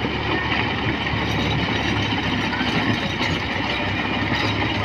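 Sonalika 50 hp tractor's diesel engine running steadily under load while it pulls a tillage implement through dry soil.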